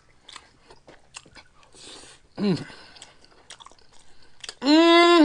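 Chewing a mouthful of meatballs, gravy and rice: scattered small wet smacks and clicks. There is a short "mm" about two and a half seconds in, and near the end a long, loud held "mmm" of relish that rises in pitch as it ends.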